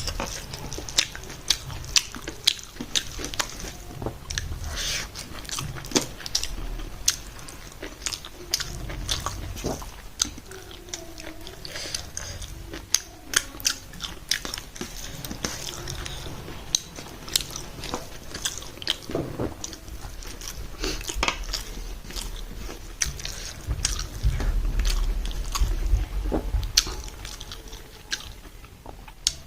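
Close-miked eating: a person chewing rice, buffalo meat and potato-and-pea curry, with many sharp wet smacks and clicks of the lips and mouth.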